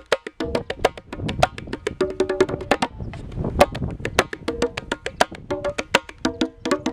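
Hand percussion played fast: a dense rhythm of sharp, clicky strokes, many ringing with pitched tuned notes, with a few deeper drum strokes in the middle.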